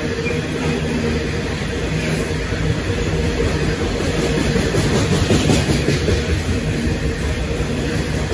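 Coal train's steel hopper wagons rolling past close by: a steady heavy rumble of wheels on rail, slightly louder about two-thirds of the way through, with faint clicks over the rail joints.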